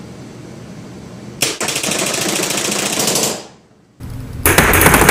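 Magazine-fed Tiberius Arms T15 paintball marker firing First Strike rounds in full auto, a fast stream of shots at about 13 a second. One burst of about two seconds starts a second and a half in, and a second burst starts near the end.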